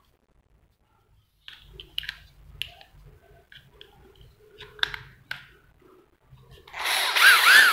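Makita 12V cordless drill: plastic clicks and knocks as the battery pack is handled and snapped in, then near the end the motor runs on the trigger, its whine rising and dipping twice with the variable-speed trigger.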